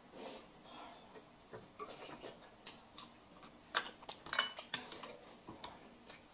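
Chopsticks and tableware clicking and tapping against plates, with a cluster of sharper clicks about four seconds in.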